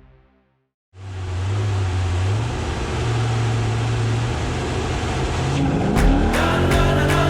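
Off-road race truck engine running with a loud noisy hiss, cutting in suddenly about a second in after a moment of silence. Near the end a rising tone leads into music with a steady drum beat.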